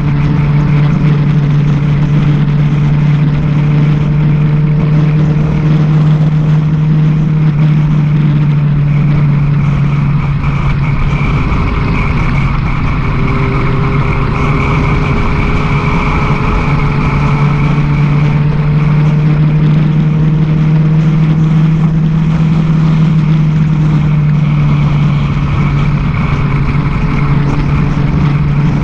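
Sport motorcycle engine running at a steady cruise, with wind rushing over the bike-mounted microphone. About a third of the way in the engine note weakens and shifts for a few seconds, then settles back to a steady tone.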